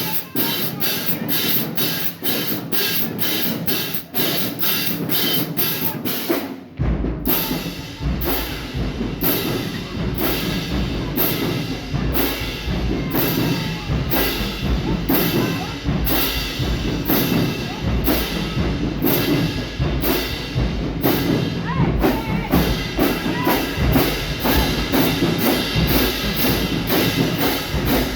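Marching band playing: the drums beat a steady cadence, and about seven seconds in the low brass and full band come in over the drums.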